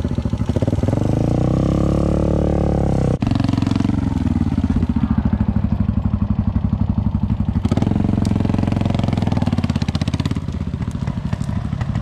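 Off-road trail motorcycle engine running at low speed. The revs rise and fall twice while the bike is paddled and turned on rough forest ground, with a steadier stretch between.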